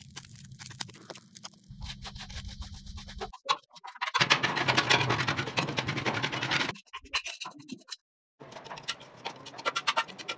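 A scraper scraping blistered, stripper-softened blue paint off the steel body panel of a 1962 Vespa scooter. It comes in several short stretches that start and stop abruptly, loudest a little past the middle.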